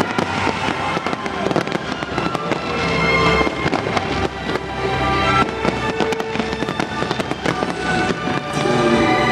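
Pyrotechnics crackling with many sharp cracks over loud show music.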